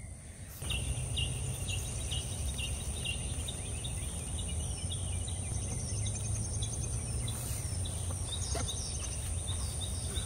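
Garden ambience: small birds chirping over and over, a steady high-pitched insect drone, and a low rumble that comes in about half a second in.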